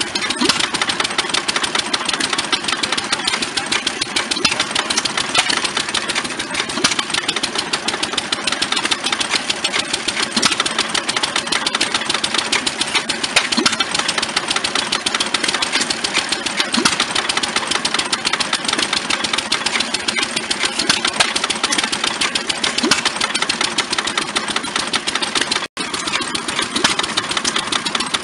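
Old stationary gas engines running, a steady busy mechanical clatter of rapid ticks and knocks. It drops out for an instant near the end.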